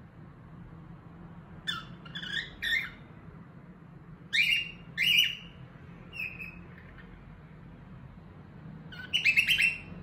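Cockatiel chirping in short whistled calls: three quick rising calls about two seconds in, two louder ones around four to five seconds, a fainter one after six, and a fast warbling run near the end.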